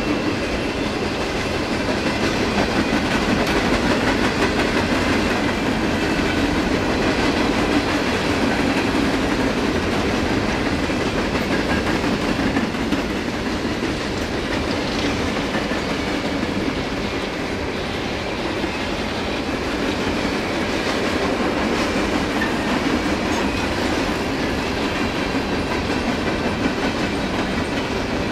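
A long string of empty steel coal hopper cars on a freight train rolling steadily past, the wheels clicking over the rail joints.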